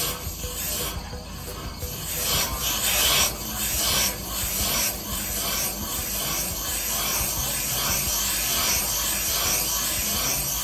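Valve seat cutter turning against a valve seat in a Mercruiser 8.1 cylinder head, a steady dry rasping scrape of metal being cut as the seat is refaced. The scrape surges unevenly for the first few seconds, then runs more evenly.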